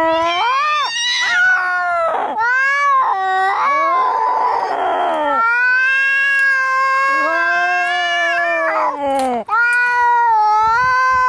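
Angry cats caterwauling in a fight: long, drawn-out, wavering yowls, two voices at different pitches overlapping in places, with a harsher, rougher cry about four seconds in.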